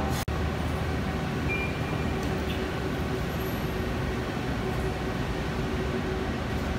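Steady low rumble of background noise with a faint continuous hum, broken by a very brief dropout just after the start.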